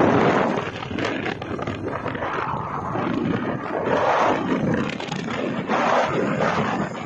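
Wind buffeting the phone's microphone on a moving motorcycle, a loud, gusting rush with road noise under it.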